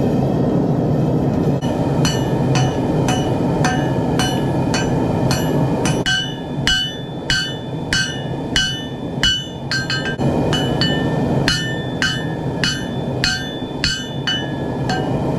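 Hammer blows on hot Damascus steel over an anvil, about two ringing strikes a second, beginning about a second and a half in, over a steady loud rushing noise.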